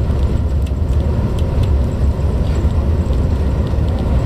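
Strong sandstorm wind buffeting the microphone: a steady, heavy low rumble with faint scattered ticks.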